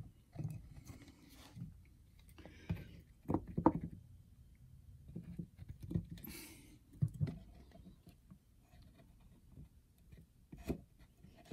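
Scattered light knocks and rubbing as wooden parts and a plastic glue bottle are handled on a workbench while glue is squeezed into drilled holes. The loudest knocks come around three and a half seconds in, and there is a brief hiss about six seconds in.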